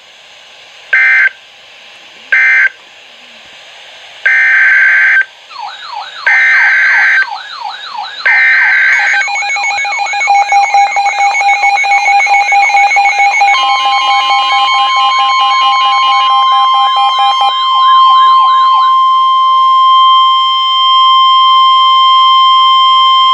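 NOAA Weather Radio alert audio. It opens with three short SAME digital data bursts and then three longer SAME header bursts. Warbling siren-like alarm tones and steady tones then sound on top of one another, and near the end they give way to the single steady NOAA warning alarm tone, which holds loud to the end.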